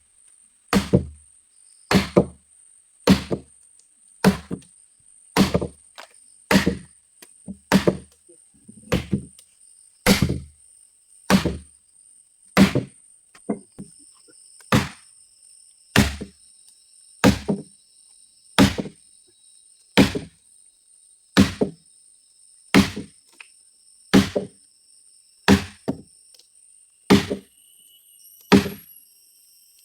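Heavy blows struck into wood, a little over one a second, with a brief pause about halfway through.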